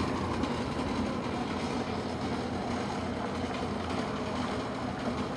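Electric corn mill (molino de nixtamal) running steadily, grinding nixtamalized corn into masa with a continuous mechanical drone.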